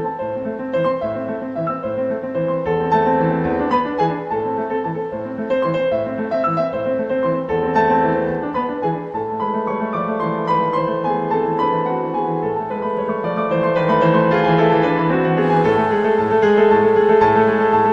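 Background piano music, a flowing classical-style piece, with a hiss joining in about three-quarters of the way through.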